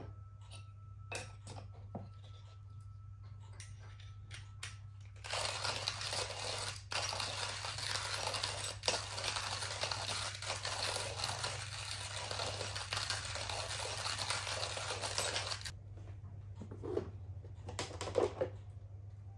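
Hand-crank coffee grinder grinding beans: a continuous gritty crunching that starts about five seconds in and runs for about ten seconds. Light clicks and knocks of handling come before and after it, over a low steady hum.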